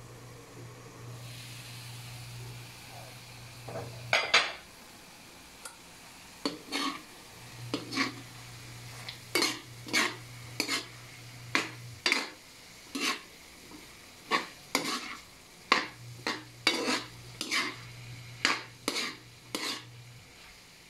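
Metal spatula scraping and clanking against a metal wok, stir-frying a ground meat and corn filling. It starts about four seconds in, with a stroke about every half second to second.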